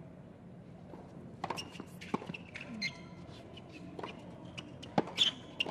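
Tennis ball bouncing on a hard court and being struck by racket strings: a series of sharp pops, the two loudest close together near the end, like a serve and its return.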